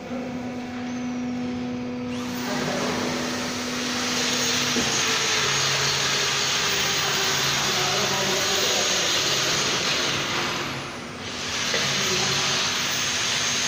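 Steady, loud machine hissing with a low hum that stops about five seconds in; the hiss dips briefly near the end.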